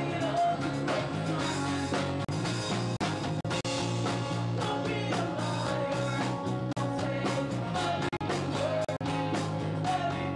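A live rock song: a man singing over strummed guitars with a steady, driving rhythm.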